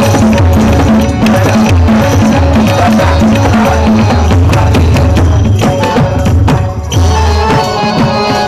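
Devotional bhajan gajar music: pakhawaj and tabla drumming a steady rhythm under harmonium tones. The drums drop out briefly about six and a half seconds in, then pick up again.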